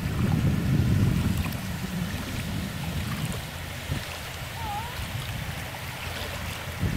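Small waves washing over a sandy beach at the water's edge, with a low rumble that is loudest in the first couple of seconds.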